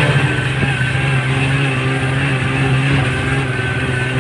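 Snowmobile engine running steadily under way across snow, a constant low drone.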